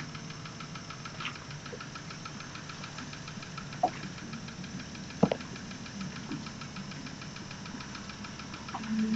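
Yamaha 40 hp outboard motor idling steadily at about 800 rpm, with an even rapid ticking. Two sharp clicks a little after the middle stand out above it.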